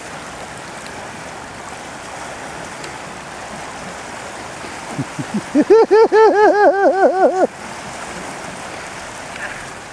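Creek water running steadily. About six seconds in comes a loud burst of rapid laughter, about eight quick pitched bursts over nearly two seconds.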